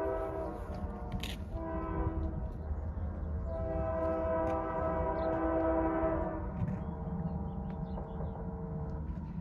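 Train horn sounding a chord of several notes in a series of blasts: two short ones in the first couple of seconds, then a long one held for about three seconds that fades away. A low rumble runs underneath.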